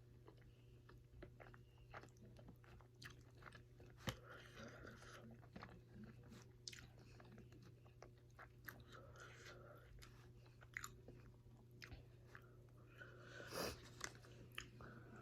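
A person biting and chewing chicken wings at close range: many small irregular wet clicks and crunches, with a louder bite near the end.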